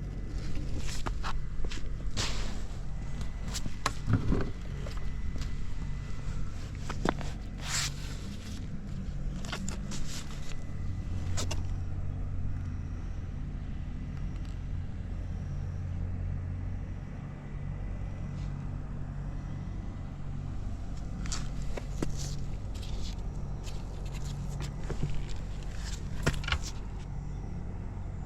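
Suzuki GS50's small four-stroke single-cylinder engine idling steadily and quietly, with no abnormal engine noise, under scattered sharp clicks and knocks.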